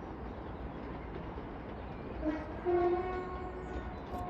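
West Midlands Railway train running with a steady rumble. About two seconds in, a train horn sounds: a short low note, then a longer higher note that fades.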